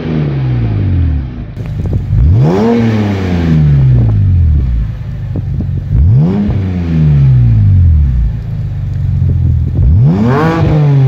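BMW E63 630i's straight-six revved at standstill through a custom-made Skytune exhaust. A rev is dying away at the start, then three more sharp blips about every four seconds, each rising quickly and falling slowly back to idle.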